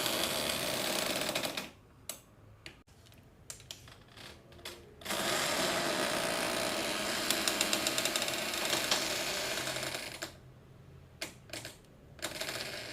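Door sound effects: a door rattling and clattering in two long bursts with rapid ticking, and a few separate clicks and knocks in the quieter gaps between them.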